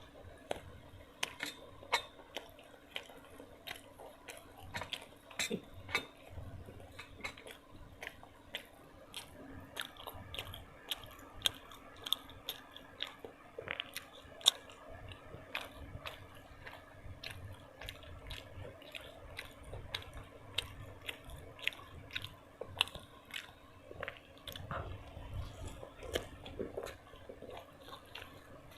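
Close-miked ASMR eating: a person biting and chewing food, with a dense, irregular run of sharp crunchy and wet mouth clicks, several a second.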